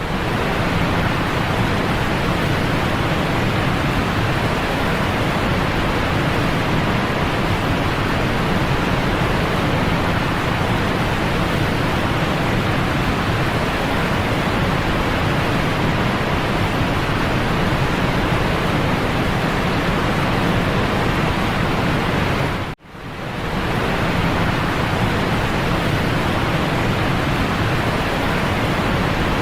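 Steady, loud rushing water, a continuous even roar with no separate splashes or drops. It cuts out for an instant about 23 seconds in and swells straight back.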